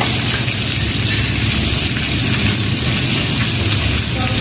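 Pork and chicken sizzling steadily on a hot samgyupsal grill pan while they are turned with tongs, over a steady low hum.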